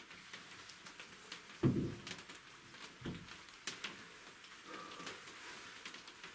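Quiet woodland background with scattered light ticks and two dull low thumps about a second and a half apart, the first the loudest, then a brief faint high tone near the end.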